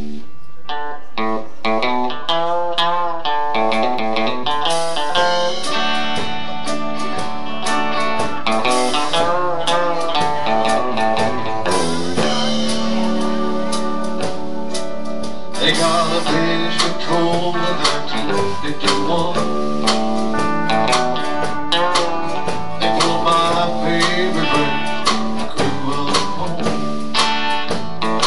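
Live country band playing an instrumental passage: acoustic and electric guitars over a steady beat.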